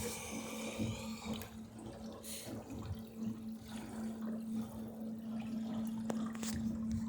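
Water sloshing and splashing against the hull of a small sailboat under way, irregular, with a few sharper splashes, over a steady low hum.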